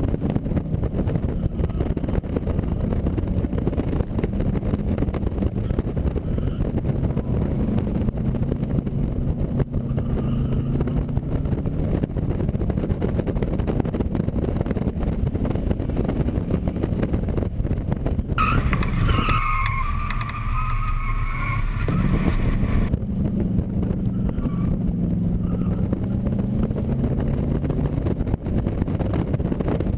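AC Cobra Mk IV's V8 running hard at race pace, its pitch rising and falling with throttle and gear changes, over constant wind rush. About two-thirds of the way through comes a few seconds of high, wavering squealing.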